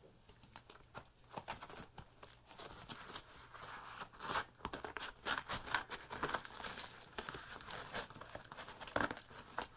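Scissors cutting and prying into a cardboard box wrapped in thick layers of packing tape: irregular crinkling, crackling and tearing of tape and cardboard, louder from about four seconds in.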